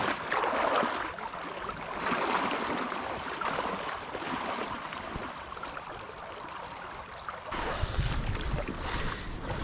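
Wader boots splashing through shallow, flowing river water as a person wades across, each step a swell of sloshing water. Near the end, a low rumble of wind on the microphone takes over.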